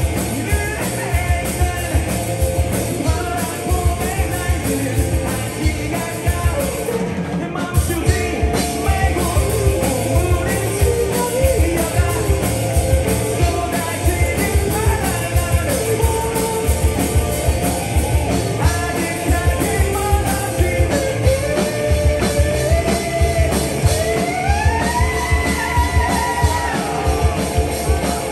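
Student rock band playing live: a singer over electric guitar, bass and drum kit, with a steady drum beat. The band stops for a moment about seven seconds in and then comes back in.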